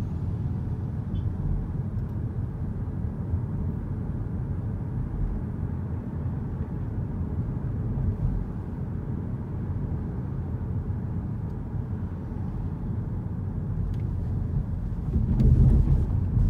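Steady road and tyre rumble heard inside the cabin of a moving Kia car, with a low, even drone and no distinct engine note. The rumble swells louder for about a second near the end.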